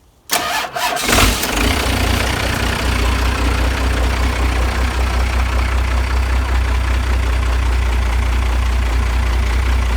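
First-generation Dodge Ram's Cummins diesel being started: the starter cranks for about a second, the engine fires and settles into a steady, rumbling idle.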